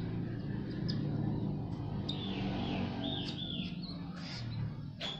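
Budgerigar chick begging while being hand-fed: a run of quick, wavering chirps in the middle, with a few short high peeps around them.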